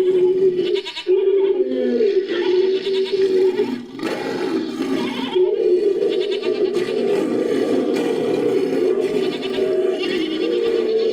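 Designed creature call built from layered goat and sheep bleats: long, drawn-out bleating calls, one after another with short breaks.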